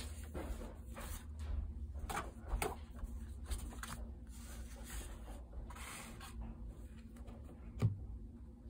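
Loose paper notecards being handled and leafed through: a string of short rustles and slides of card against card, with one sharper knock near the end.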